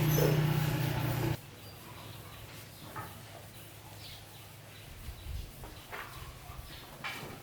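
A motor runs with a steady low hum and cuts off abruptly just over a second in. Faint short bird chirps and small clicks follow.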